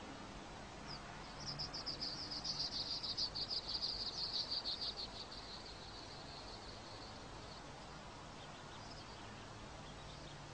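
A rapid, high-pitched chirping trill that starts about a second in and fades out after about six seconds.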